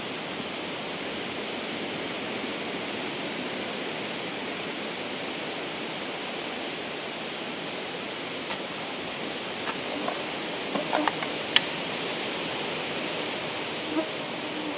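Steady wind noise through the woods, with a few scrapes and clicks from a small hand shovel digging into stony soil in the second half.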